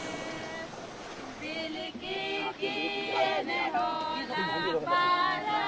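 A group of voices singing unaccompanied, like a choir, coming in about a second and a half in after a held tone fades away.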